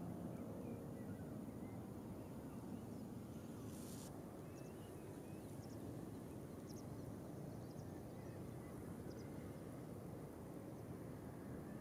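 Steady, faint outdoor background noise with a few faint high chirps about four to five seconds in.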